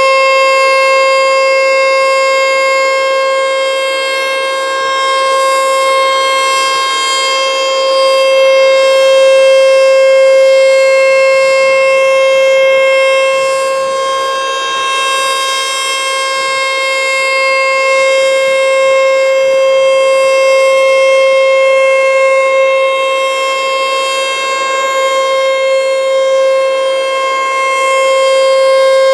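American Signal T-121 outdoor warning siren sounding a loud, steady tone at constant pitch during an emergency siren test, slowly swelling and fading a little in loudness.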